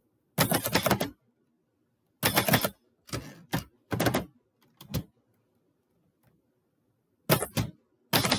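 Typewriter keys being struck in quick runs of several strokes, with short pauses between the runs as a poem is typed.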